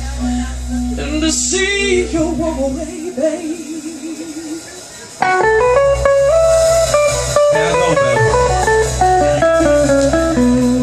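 Live blues band with an electric guitar lead of wavering, bent notes. The bass and drums drop out about three seconds in, and the full band comes back in sharply about five seconds in under a lead line of stepping notes.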